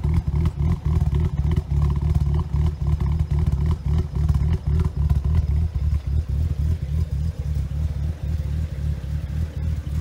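BMW N54 twin-turbo straight-six idling very roughly at the exhaust, a lumpy, uneven idle that shakes the car. The owner hopes to cure it by cleaning dirty VANOS actuators.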